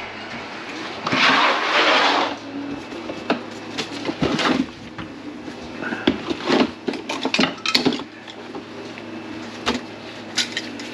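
Clatter of things being handled in an under-sink kitchen cabinet: scattered clicks and knocks, with a longer rush of rustling noise about a second in.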